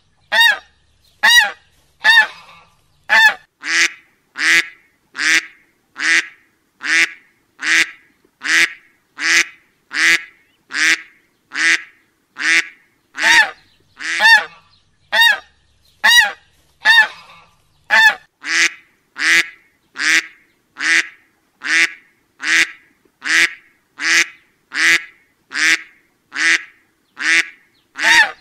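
Looped duck-like honking call, one short nasal honk about every second in an even rhythm, each with a slight rise and fall in pitch.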